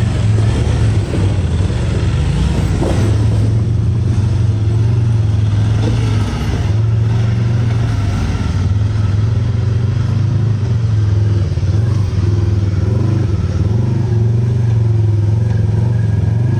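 A side-by-side UTV's engine running steadily with a low hum, heard loud and close.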